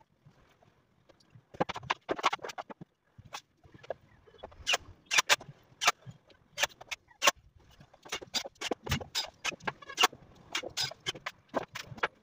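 Irregular sharp clicks and knocks of wooden cabinet boards and small hardware being handled, coming in short clusters.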